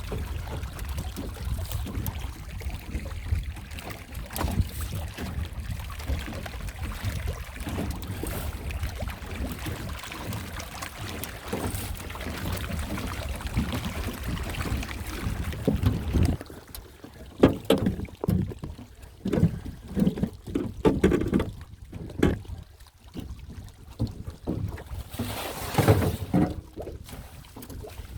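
Sounds aboard a small boat on a fish pond: a steady low rumble for about the first half, then irregular knocks and short noises.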